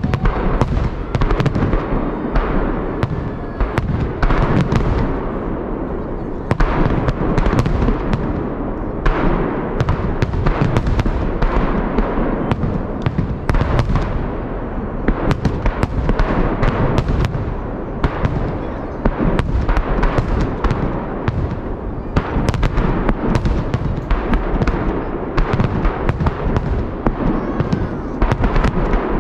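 Aerial fireworks salute in a continuous barrage: many shell bursts and crackles overlapping, several a second, with no pause, over a constant rumble.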